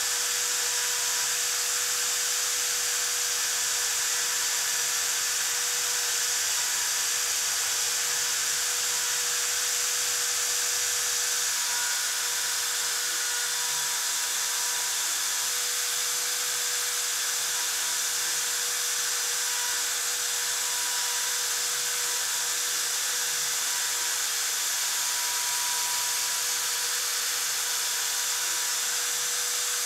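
CNC router spindle running steadily as it cuts, a continuous high whine with a steady lower tone and fainter tones that come and go.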